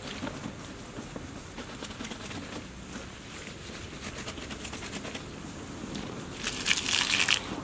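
Rubber boot being handled and rubbed, with light scuffs and clicks, then a short hissing burst of water from a garden hose near the end.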